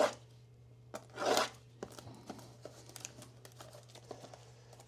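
Packaging of a trading card box being torn open in two short rips, the first right at the start and the second about a second in, followed by light clicks and crinkles of handling.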